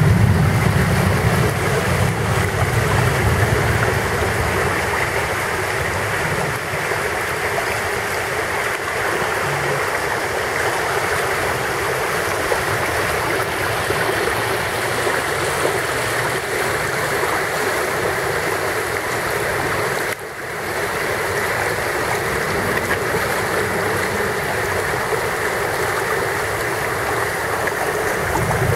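Muddy floodwater rushing down a street after torrential rain, a steady, loud rush of fast, churning water.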